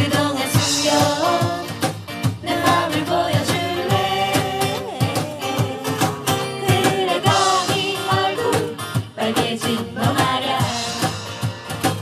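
Live acoustic band playing a song: two acoustic guitars strumming over a steady cajon beat, with a woman and a man singing.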